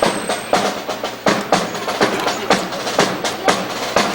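Rifle drill: a quick, irregular run of sharp wooden clacks, several a second, as rifles are slapped, spun and brought down by a squad in unison.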